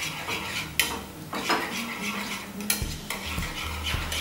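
Wire whisk beating raw eggs with chopped onion and green chilli in a ceramic bowl for an omelette, the metal wires clicking and swishing against the bowl in quick, uneven strokes.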